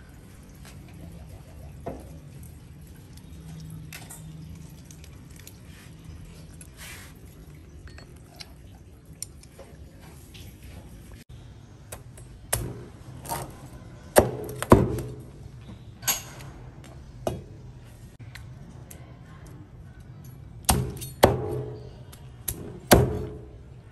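Faint background music, then from about halfway a series of about ten sharp knocks, some coming in quick pairs.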